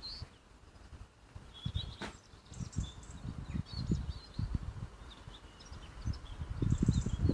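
Birds chirping in the background, over irregular low thumps and rumbles that grow strongest near the end.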